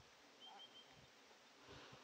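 Near silence: faint outdoor ambience, with a small bird chirping faintly and briefly about half a second in.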